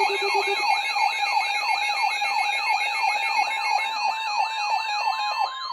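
Several emergency alert tones sounding together: a siren-like sweep falling in pitch about four times a second, a high warbling tone, and steady alert tones under them, with another steady tone joining near the end.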